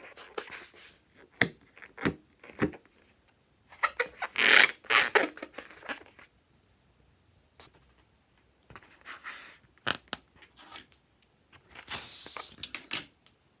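Scissors snipping along with scraping and rubbing handling sounds, in irregular bursts with a quiet stretch of about two seconds in the middle.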